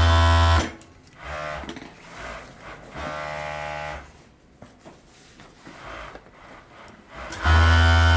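Loud steady electrical hum that cuts off under a second in and comes back near the end; in between, a few short bursts of a small electric motor running.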